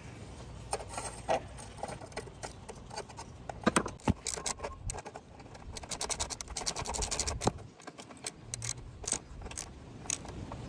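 Ratchet and 17 mm socket tightening the exhaust clamp nut on a Vespa GTS: scattered metallic clicks and clinks, the loudest a few sharp clinks about four seconds in, then a fast run of ratchet clicks.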